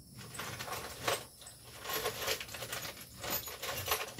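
Rummaging through a pile of stored junk: irregular rustling with small objects clinking and clattering.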